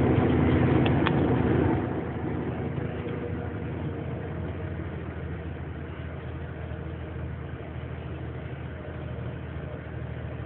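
Loaded heavy truck's diesel engine running, heard from inside the cab as a steady low drone with road noise; it drops a step in loudness about two seconds in, then holds steady.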